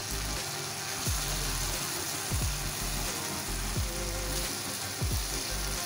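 Spice paste and tomatoes sizzling in hot oil in a nonstick pan while being stirred with a spatula, with background music and a repeating low beat.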